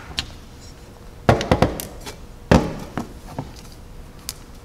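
Hand tools and small carburetor parts clinking and knocking on a metal workbench as they are set down and handled: a string of short, sharp taps, the loudest about two and a half seconds in.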